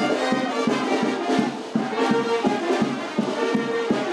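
Brass band music with a steady drum beat, horns playing a melody over it.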